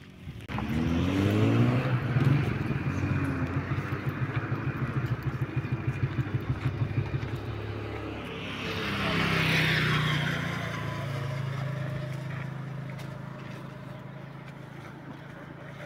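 A motor vehicle's engine revs up about half a second in, then runs at a steady, throbbing note. It swells louder around nine to ten seconds in and then slowly fades.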